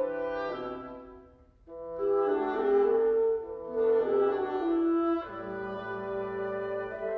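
Woodwind quintet of flute, oboe, clarinet, French horn and bassoon playing live. A phrase fades away about one and a half seconds in, and after a brief pause the ensemble comes back in, settling into softer held chords near the end.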